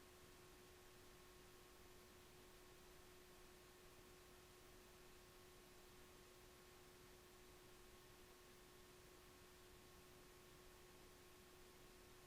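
Near silence with a faint, steady hum holding two even tones.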